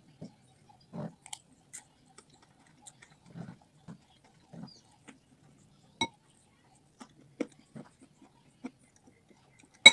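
Close chewing of fried noodles and fried chicken: soft, irregular mouth sounds. A sharp clink of a metal spoon against a ceramic bowl comes about six seconds in, and another near the end.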